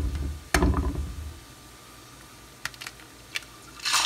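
An egg knocked against the rim of a nonstick frying pan, a sharp knock just after the start, then a few faint clicks. Near the end the raw egg drops into the hot coconut oil and starts sizzling loudly.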